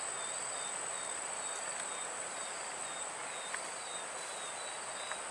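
Insects calling steadily: a continuous high-pitched whine with a short chirp repeating about twice a second, over a faint hiss.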